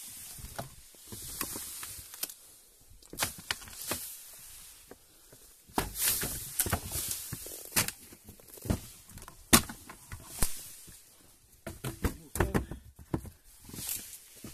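Reed stems rustling and crackling as they are pushed aside and trampled, with irregular sharp cracks and knocks from reeds and wooden boards; the loudest crack comes a little past halfway.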